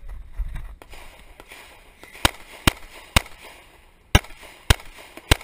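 Pistol firing six shots in two strings of three, the shots about half a second apart with a pause of about a second between the strings.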